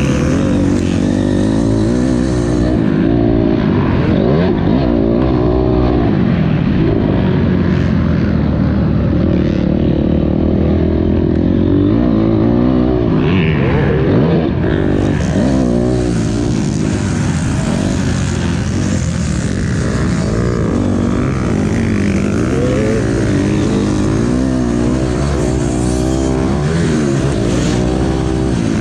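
Honda CRF250R motocross bike's single-cylinder four-stroke engine being ridden hard, its pitch rising and falling over and over with the throttle and gear changes.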